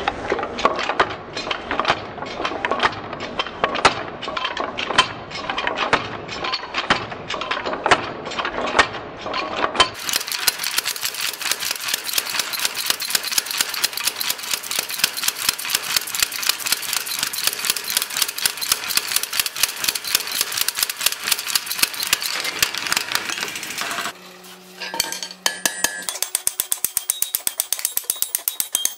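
Power hammer pounding red-hot iron in rapid, even blows, with the strikes coming faster for a long stretch after about ten seconds. Near the end, a hand hammer rings on the anvil in a steady run of strikes on hot iron.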